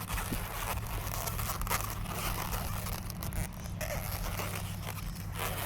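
Latex modelling balloons being handled and twisted by hand, an irregular run of rubbing, crinkling and scraping noises.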